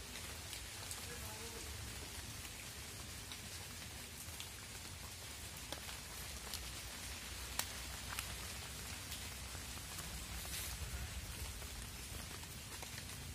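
Faint crackling of dry leaf litter underfoot as someone walks, with scattered small snaps over a steady hiss; one sharper snap a little past the middle.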